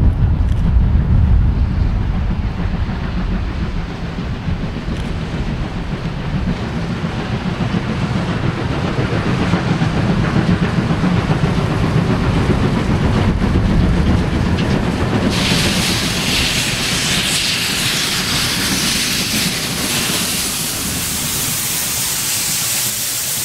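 Steam-hauled train running with a low rumble, loudest at the start. About fifteen seconds in, a loud, steady hiss sets in suddenly and carries on.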